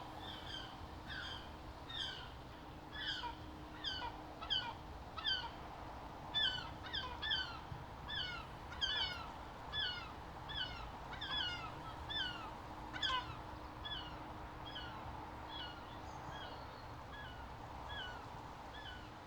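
Seagulls calling over and over in a quick run of short, downward-bending cries. The calls are thickest in the middle and thin out toward the end, over a steady low background hiss.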